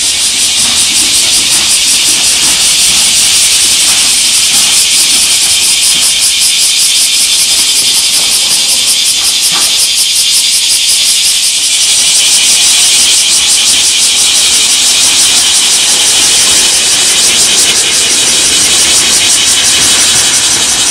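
Loud, steady high-pitched shrill hiss with a fast flutter, over a faint low rumble of freight trains in the rail yard.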